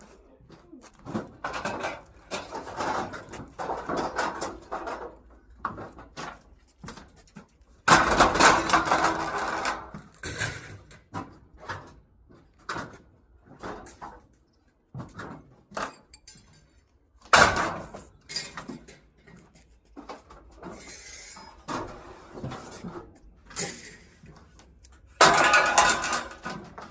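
Scrap metal pieces clanking and clattering as they are handled and dropped, with loud crashes about eight seconds in, around seventeen seconds in, and near the end.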